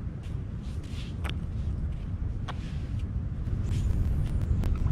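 Wind buffeting the microphone: a steady low rumble that grows louder near the end, with a few faint clicks.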